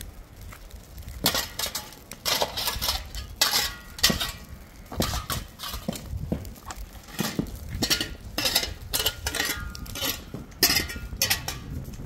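A hand tool striking and scraping dry, stony ground again and again in irregular strokes, some with a short metallic clink, as burning grass is beaten out.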